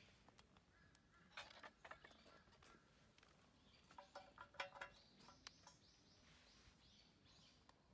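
Faint light metallic clinks as a small wire grill grate is set onto a burning mini wood-gas stove, clustered about four to five seconds in, with faint bird chirps behind.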